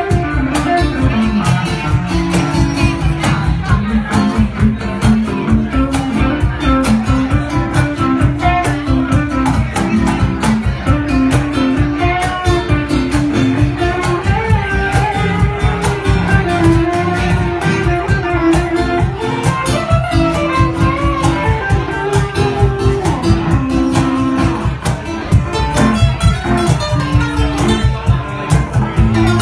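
Live instrumental music: an electric guitar and an acoustic guitar play over a cajón keeping a steady beat.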